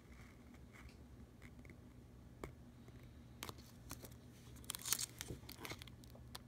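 PDLC smart film crinkling and crackling as a razor blade is worked between its layers to prise them apart: scattered faint ticks, with a short burst of louder crackles about five seconds in. A steady low hum sits underneath.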